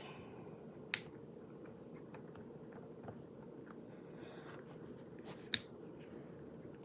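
Bubbles of a silicone octopus keychain pop-it being pressed: a few soft, scattered pops and clicks, with a sharper one about a second in and another about five and a half seconds in.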